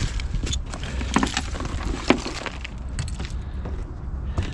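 Rustling, scraping and scattered small knocks of debris and carpet being handled in a car trunk, over a steady low rumble.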